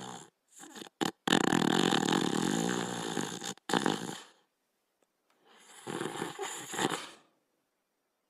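Cartoon Border Collie snoring. A long, loud snore runs from about a second in, followed by a short one, then a softer snore near the end, with dead silence between them.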